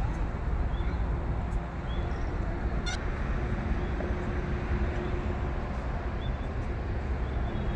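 Outdoor background noise: a steady low rumble with a few faint, short bird chirps scattered through it.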